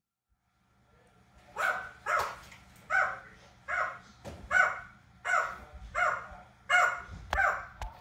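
Red-lored Amazon parrot calling in a rapid series of short, loud calls, about nine of them, one every 0.7 seconds or so, starting after a second and a half of silence.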